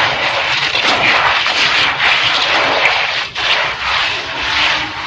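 Gritty red dirt crumbling in water: a dense, continuous crackling fizz that dips briefly about three seconds in.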